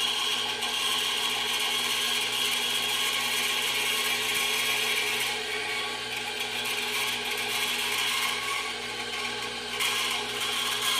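Micromark benchtop band saw running with a steady motor hum, its blade cutting thin sheet metal with a high, hissing whine that eases off past the middle and returns near the end.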